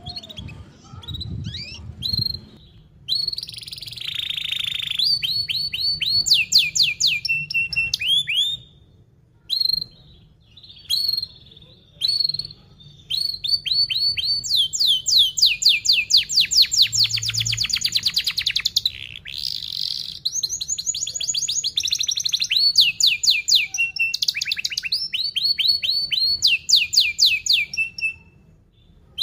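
Young domestic canary singing a fast, tightly packed song: runs of rapid down-sweeping trill notes repeated many times a second, broken by short pauses.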